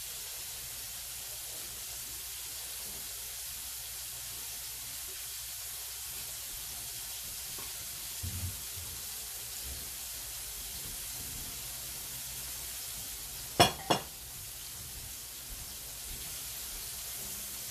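Hot oil sizzling steadily as shrimp deep-fry in one pan and mixed vegetables cook in a wok on high heat. There is a soft thump about eight seconds in and two sharp knocks in quick succession near the end, the loudest sounds here.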